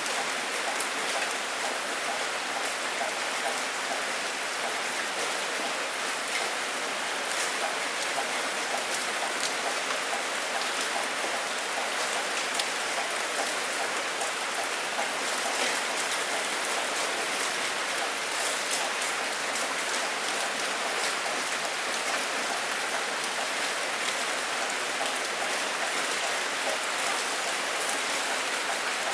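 Steady rainfall, an even hiss of falling rain with fine droplet patter on a surface.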